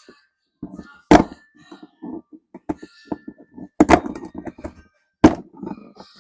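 Hand tools and metal parts knocking and clunking at a truck's front hub. There are three sharp clunks, about a second in, near four seconds and just past five seconds, with small clicks and rattles between them.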